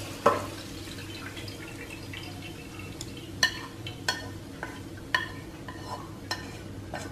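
Fried shallots being scraped out of a nonstick pan into a wire strainer: a knock near the start, then about ten sharp clicks with a brief metallic ring from about three seconds in as the utensil and pan knock against the strainer, over a low steady hum.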